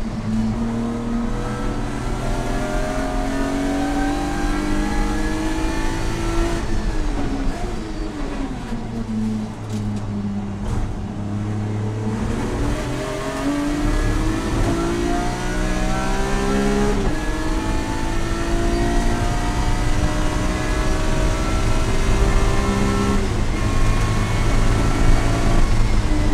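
Race car's engine heard from inside its cabin, driven hard around a track. It climbs in pitch through the gears with sudden drops at upshifts about 6, 17 and 23 seconds in, and winds down under braking between about 7 and 12 seconds in before pulling again.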